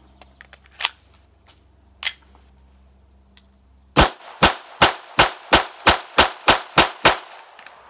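GSG Firefly .22 LR semi-automatic pistol fired ten times in quick succession, about three shots a second, with 40-grain lead round-nose ammunition. Every round cycles the slide with no malfunction. Before the string there are two sharp clicks from handling the pistol.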